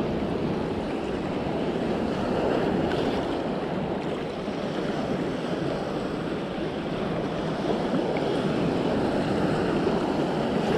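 Steady rush of wind on the microphone over a choppy sea, with small waves washing and breaking.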